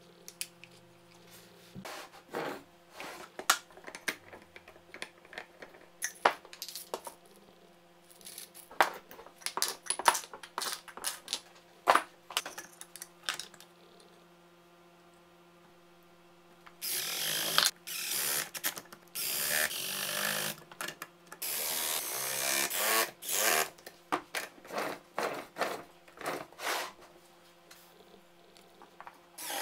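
Plywood parts and metal jar lids being handled and set in place, with scattered light knocks and clicks. From about halfway on, a cordless driver runs in repeated short bursts, driving screws into plywood.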